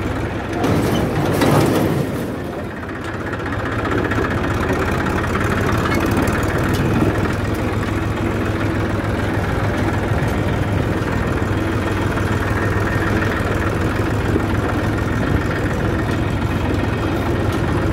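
Massey Ferguson 241 tractor's three-cylinder diesel engine running steadily while the tractor drives in top gear. A rushing noise comes in about a second in, and the level dips briefly before settling.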